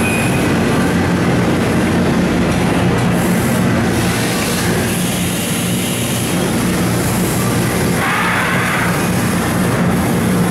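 1999 Mori Seiki SH-400 horizontal machining center running with its spindle turning a tool: a steady mechanical hum over a wash of machine noise. Coolant spraying onto the fixture adds a hiss near the end.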